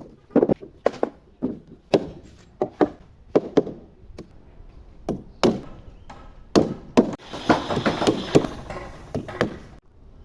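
Irregular sharp knocks of a tool striking wood, about twenty in all, some with a brief ringing tail.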